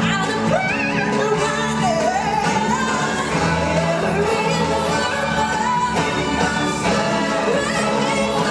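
Live stage-show musical number: a group of singers, choir-like, over band backing, with a lead voice gliding up and down in pitch.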